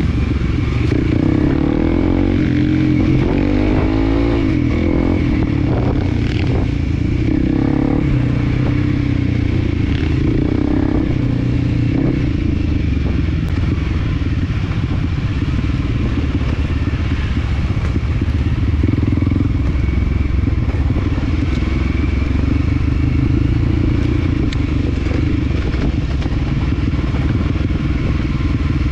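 Motorcycle engine running under way, its pitch rising and falling with the throttle, with scattered knocks and rattles.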